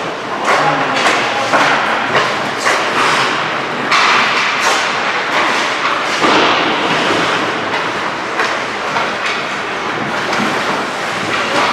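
Ice hockey skates scraping and carving across the ice in quick repeated strokes, with occasional thuds.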